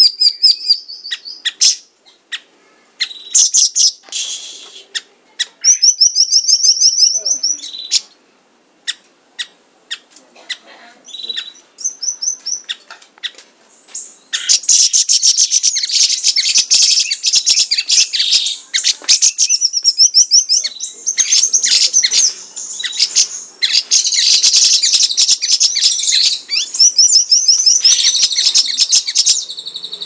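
Caged siri-siri songbird singing rapid strings of sharp, repeated notes and trills, with short pauses in the first half and almost unbroken song from about halfway on.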